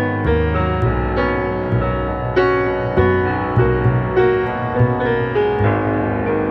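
Instrumental passage of a song, led by piano chords over a low bass part, with no singing.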